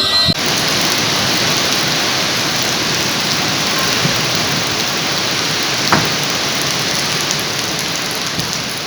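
Heavy storm rain pouring down in a steady, dense hiss, with one sharp knock about six seconds in.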